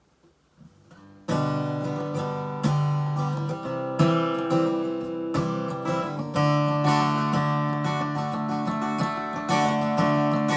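Acoustic guitar strumming chords, an instrumental intro that starts about a second in after a brief near-quiet moment, with fresh strums every second or so.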